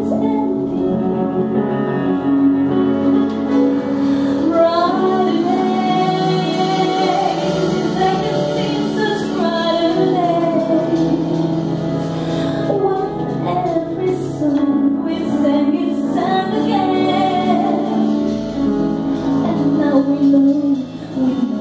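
A woman singing live with piano and double bass accompaniment; the accompaniment plays alone at first and her voice comes in about four seconds in, with held notes that waver in vibrato.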